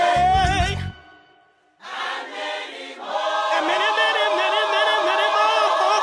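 A song with a beat ends on a held sung note about a second in. After a short pause, unaccompanied voices come in and swell into a long held chord sung with vibrato.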